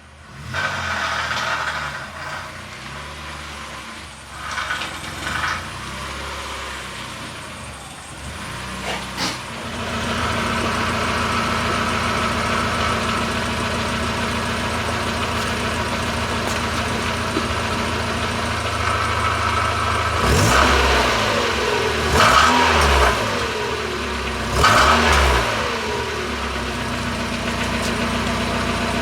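Mazda Miata NA6's 1.6-litre four-cylinder engine running unevenly at first, then settling into a steady idle about ten seconds in. It is blipped three times, the pitch rising and falling each time, before dropping back to idle.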